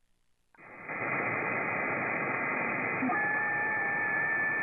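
Shortwave receiver static from an SDRplay RSP1A software-defined radio on an MLA-30+ active loop antenna, as it is retuned between HF bands. After a brief dropout at the start there is steady hiss with no voice. About three seconds in, a steady two-tone whistle from a carrier comes in.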